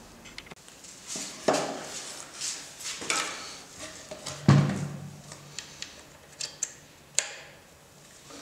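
Irregular clicks, knocks and clinks of small metal parts and effects gear being handled on a wooden table, with a brief low hum after a loud knock about four and a half seconds in.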